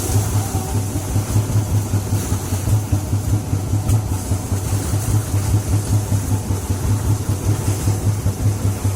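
Boat engine running steadily, a low hum pulsing in a fast, even beat.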